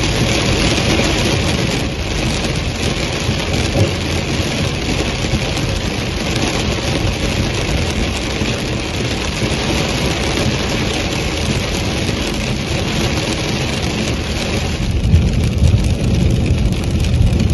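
Heavy rain hitting the roof and windscreen of a moving car, heard inside the cabin over steady engine and wet-road tyre noise. About fifteen seconds in, the rain hiss eases and the low road rumble comes forward.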